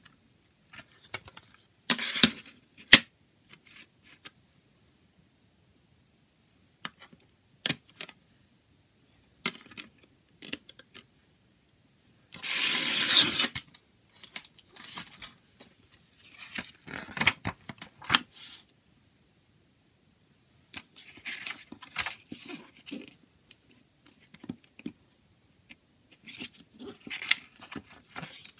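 Handling a plastic CD jewel case and its paper booklet: scattered sharp plastic clicks and spells of rustling, with a dense tearing, crinkling noise lasting about a second near the middle.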